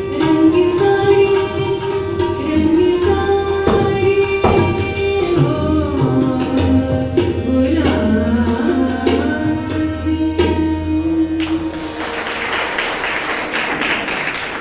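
A woman sings a dadra in Raag Pahadi, accompanied by tabla strokes, harmonium and a tanpura drone, with the song drawing to its close. The music stops a little before the end and an audience applauds.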